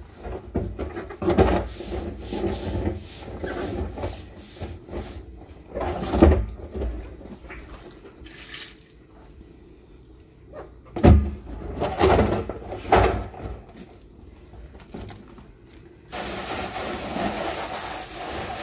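Hands rubbing and wiping the outside of an empty plastic drum, with several hollow knocks as the drum is tipped and turned. About two and a half seconds before the end, a garden hose spray starts with a steady hiss onto the drum.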